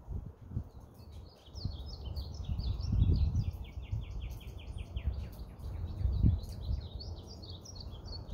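A songbird singing a long run of quick, repeated high chirping notes, starting about a second in. Low thumps and rumble sit underneath, loudest about three and six seconds in.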